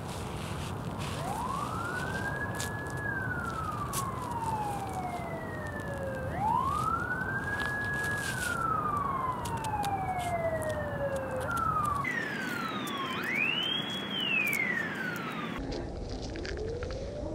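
Siren wailing in slow cycles: each wail rises quickly, holds briefly, then falls slowly over about three seconds. There are three full wails, the third pitched higher than the other two, and a fourth begins rising near the end, over a low background rush with scattered faint clicks.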